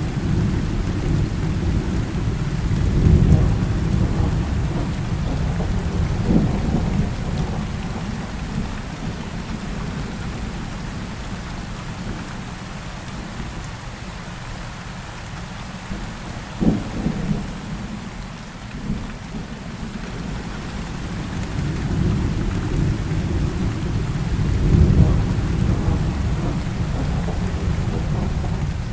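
Heavy rain falling steadily, with thunder rolling through it: deep rumbles swell a few seconds in and again near the end, and a short, sharper crack comes a little past the middle.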